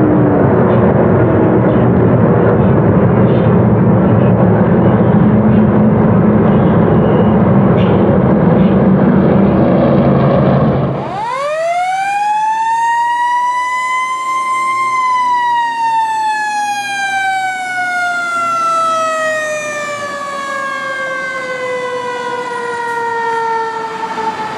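Race truck engines running at speed around the track, a steady loud noise that cuts off suddenly about eleven seconds in. A fire-truck siren then winds up quickly and slowly winds down in pitch.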